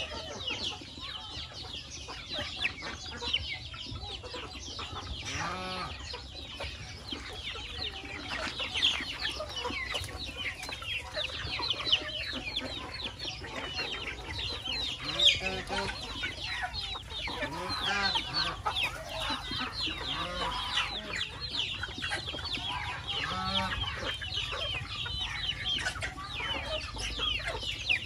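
A flock of chickens clucking and calling, with a dense chorus of many short, high calls throughout and a few lower calls now and then.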